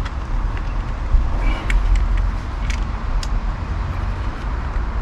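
Steady low outdoor rumble with a few light, sharp clicks of small parts being handled, bunched between about one and a half and three and a half seconds in.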